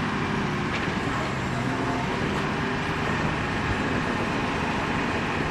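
Steady drone of a fishing boat's engine working against tow cables, with water churning at its stern.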